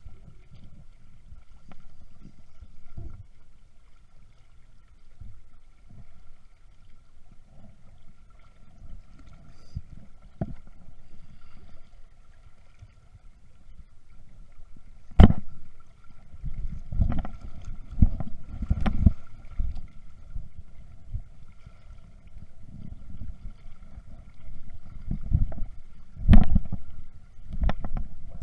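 Wind rumbling on the microphone held just above choppy river water, with several sharp knocks, the loudest about fifteen seconds in and another near the end.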